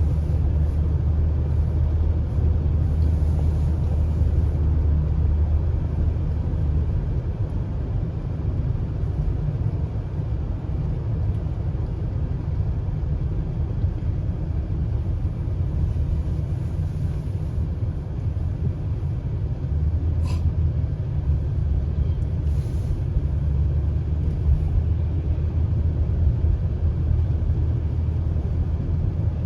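Steady low rumble of a car driving on the road.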